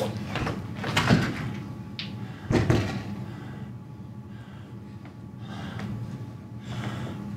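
Heavy thumps on a stage: a few knocks in the first three seconds, the loudest about two and a half seconds in, then quieter movement.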